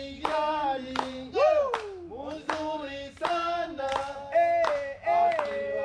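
Swahili song sung with hand claps keeping a steady beat of about two to three claps a second.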